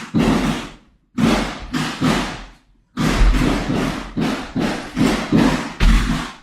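A rapid string of firework bangs, about two or three a second, each with a short echoing tail, with brief pauses about a second in and again near the middle.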